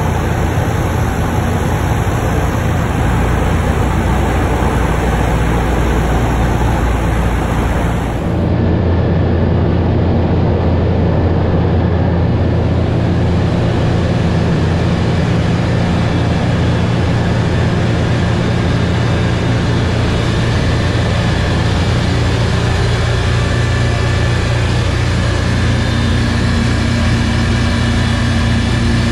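The PBY-5A Canso's twin radial engines running steadily in flight, a loud, constant drone heard inside the hull. The tone of the drone changes about eight seconds in.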